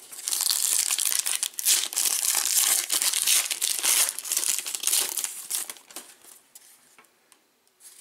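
Foil wrapper of a Panini Prizm trading-card pack being torn open and crinkled by hand, a dense crackling rustle that dies away after about five and a half seconds.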